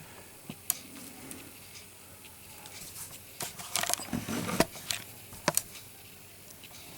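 A small package being handled and opened: scattered sharp clicks and taps, with a burst of rustling about three to four and a half seconds in.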